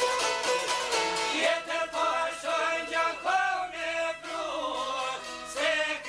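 Albanian folk ensemble playing live: çifteli and lute plucked in a quick rhythm with a violin. From about a second and a half in, a man's voice comes in, singing long sliding lines over the strings.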